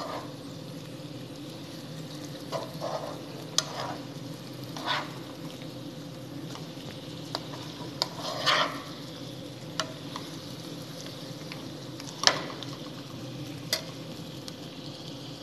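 Chicken frying in a nonstick pan, a steady sizzle, with a spatula stirring and scraping against the pan in short strokes every few seconds.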